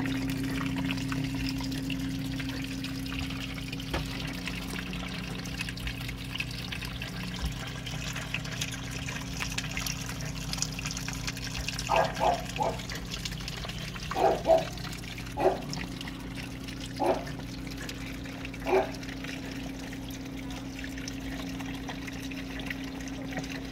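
Water trickling steadily over the wet background of a planted terrarium, over a steady low hum from its pump. About halfway through, eight short pitched sounds come in small groups over some seven seconds.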